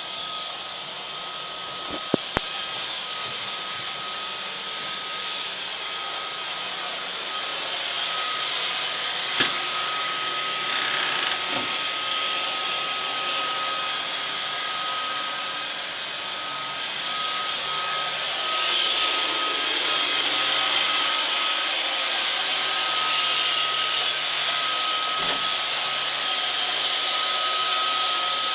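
Roomba robot vacuum running: a steady whir with a constant high whine, and a few sharp knocks about two seconds in and again around nine seconds.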